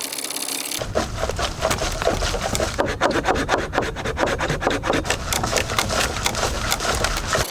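Small hand saw cutting through a thick tree trunk, in quick, even back-and-forth strokes that start about a second in.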